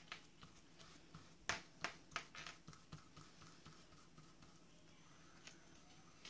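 Faint, scattered light taps and dabs of a small paintbrush working Mod Podge onto a paper napkin on a craft mat, most of them bunched together between about one and a half and three seconds in.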